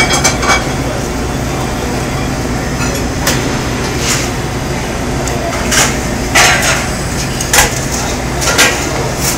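A steady low hum with a handful of short, sharp knocks and clinks scattered through it, the loudest near the start and at about seven and a half seconds.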